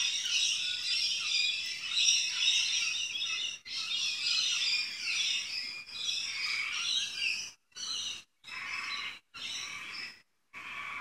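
Many small birds chirping and twittering at once in a dense chorus. In the last few seconds it cuts in and out in short stretches.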